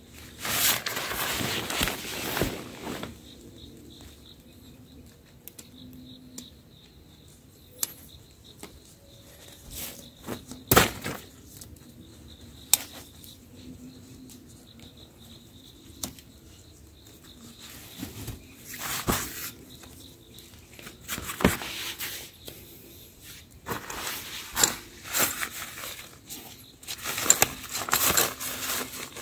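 Bursts of rustling every few seconds, longest in the first three seconds and crowding together near the end, with a few sharp clicks in between.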